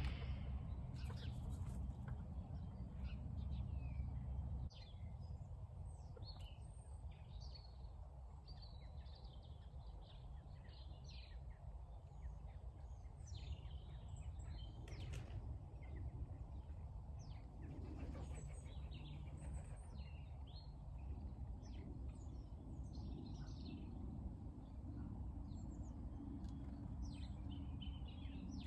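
Small garden birds chirping and singing, many short calls scattered throughout, over a steady low background rumble that eases about five seconds in.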